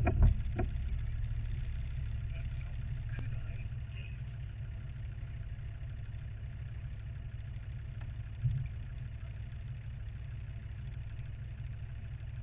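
Land Rover Discovery 2's Td5 five-cylinder turbodiesel idling with a steady low rumble. A couple of knocks come right at the start, and there is a single thump about eight seconds in.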